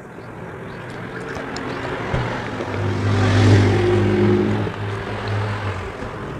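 A motor vehicle passing by: a low engine hum and a rush of noise that swells to a peak about halfway through, then fades away.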